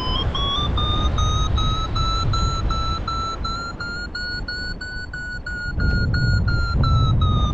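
Paraglider variometer beeping in quick, evenly spaced beeps, the pitch stepping up and holding high, then easing down slightly near the end: the vario's signal of climbing, strongest in the middle. Wind rushes on the microphone underneath.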